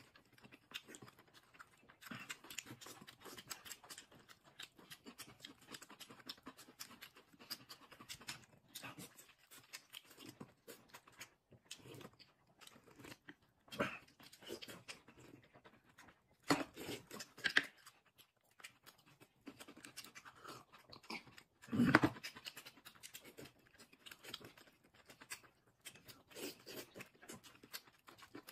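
Close-up eating sounds of people eating boiled dumplings with chopsticks: soft chewing and lip smacking, with a few louder slurps partway through.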